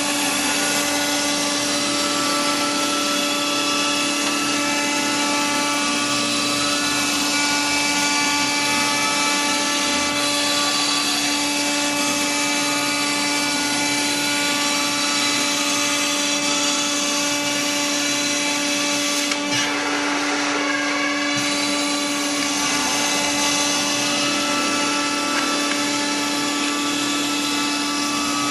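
CNC router spindle running steadily at high speed while milling, a constant whine over a hiss of cutting noise, with fainter higher tones that come and go.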